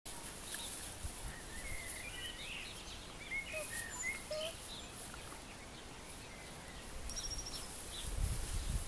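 Outdoor background noise with birds chirping in scattered short calls and a quick high trill a little after halfway. A low rumble builds near the end.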